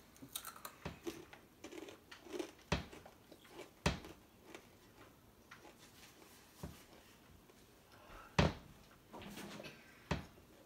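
A child chewing a crunchy Takis Fuego rolled tortilla chip: sharp, short crunches every second or two at irregular intervals.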